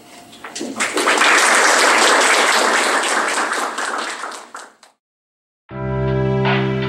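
An audience applauding, building up about a second in and fading out just before 5 seconds. After a brief silence, background music with piano-like keyboard notes starts near the end.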